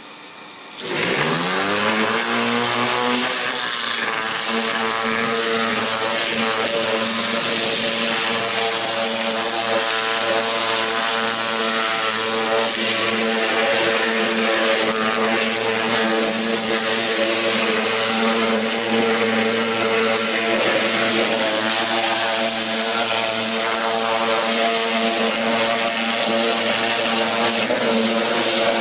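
Oertzen E1000 ultra-high-pressure cleaner coming up to speed about a second in, its hum rising in pitch and then holding steady. Under the hum, the 1000-bar turbo-nozzle water jet hisses loudly as it blasts a steel frame and the concrete.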